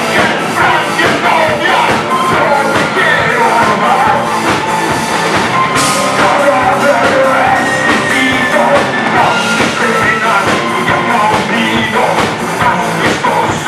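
Live punk rock band playing electric bass, electric guitar and drum kit, with a singer yelling into the microphone.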